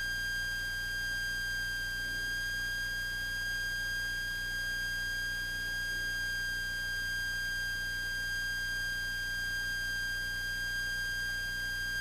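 Cessna 172S cockpit audio during the full-power climb after takeoff: a steady high-pitched whine with several fainter overtones above it, over a low steady engine drone.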